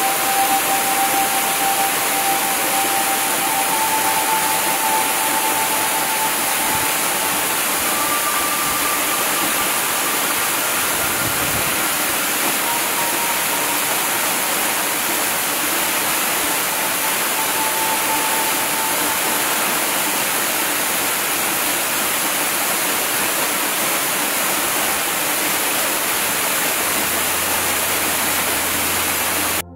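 Loud, steady rushing noise, even across the whole range and strongest in the highs, with faint long held tones drifting in and out. It cuts off suddenly just before the end.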